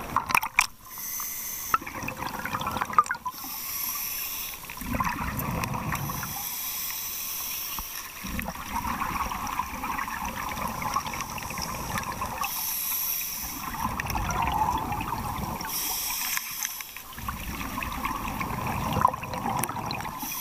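Scuba diver breathing underwater through a regulator: a hiss on each inhalation alternates with bubbling, gurgling exhalations, one breath every few seconds.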